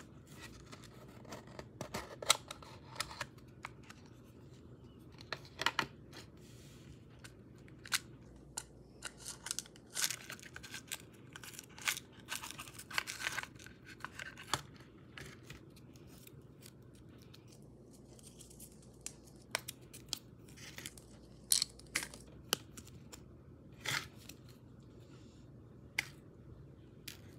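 Small white cardboard gift box being handled and opened: scattered light taps and clicks on the box and desk, with a stretch of papery rustling about halfway through.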